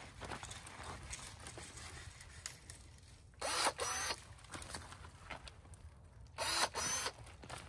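Hand pruners cutting through desert willow branches: two pairs of short, loud cuts, one pair about halfway through and another about three seconds later, with leaves and twigs rustling softly in between.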